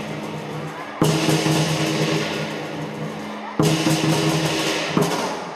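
Lion dance percussion: a drum beating with clashing cymbals and a ringing gong. Big crashes hit about a second in and again past the middle, each leaving a ringing tone that slowly dies away.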